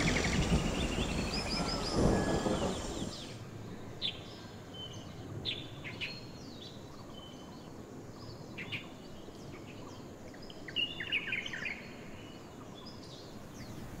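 Forest ambience: scattered short bird chirps over a faint steady hiss. A louder, fuller noise fills the first three seconds and then drops away.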